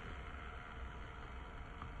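Steady background hiss with a low hum, and a faint short tone blip near the end.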